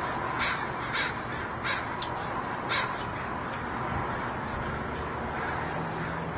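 Crow cawing four times in the first three seconds, short harsh calls over steady background noise.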